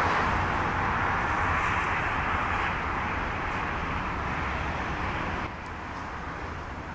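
Jet engines of a taxiing Boeing 737-800 airliner running at low taxi power: a steady rushing noise over a low rumble. It fades slowly, then drops more sharply about five and a half seconds in.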